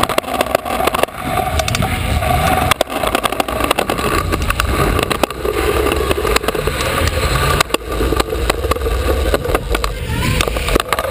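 Stunt scooter wheels rolling across a concrete floor and onto a ramp, a steady rumble with many sharp clicks and rattles, heard close up from a camera mounted on the scooter.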